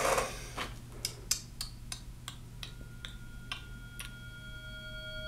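Tense horror-film sound design: a steady ticking, about three ticks a second, over a low hum. From about halfway, high sustained tones come in one after another and the whole builds in loudness.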